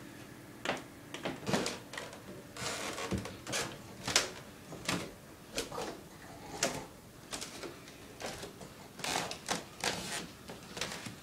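Irregular sharp knocks and clicks, about one or two a second, with the loudest about four seconds in.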